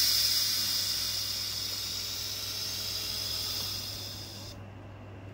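A loud hiss that starts suddenly, fades slowly, and cuts off about four and a half seconds in, over a steady low hum.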